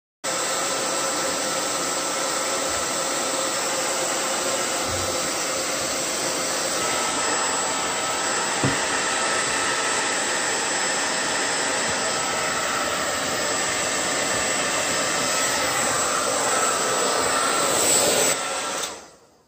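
Handheld hair dryer running on high heat: a steady rushing blow with a faint whine over it, which stops near the end.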